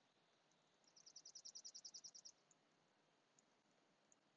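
Near silence, with a faint high-pitched trill of quick, even pulses, about a dozen a second, lasting about a second and a half.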